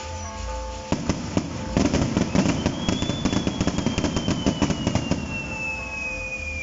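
Fireworks going off: a sharp bang about a second in, then rapid crackling pops and bangs for about four seconds. A high whistle joins in the middle and slides slowly downward.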